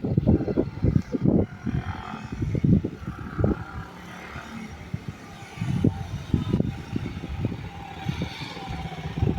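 Italika FT150 single-cylinder motorcycle engine running after its rebuild, with irregular low rumbling surges.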